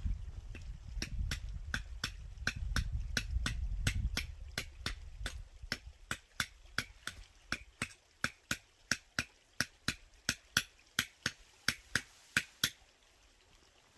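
Sharp, evenly spaced hammer-like blows, about three a second, keeping a steady pace for around eleven seconds before stopping near the end. A low rumble lies under the first five seconds.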